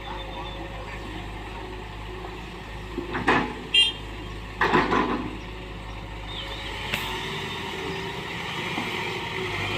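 An engine running steadily. A few louder short noises come in the middle, one of them a brief high-pitched beep.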